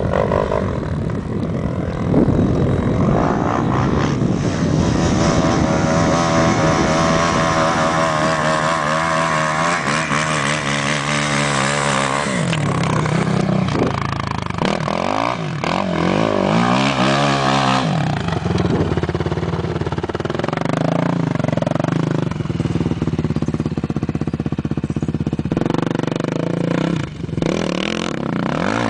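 Suzuki LT-R450 quad's single-cylinder four-stroke engine running hard, its pitch climbing and dropping again and again as the throttle is worked.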